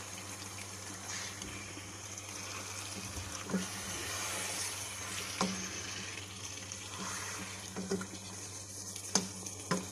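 Fish curry simmering in a nonstick pan as a spatula gently turns the fish pieces, with a few light clicks of the spatula against the pan over a steady low hum.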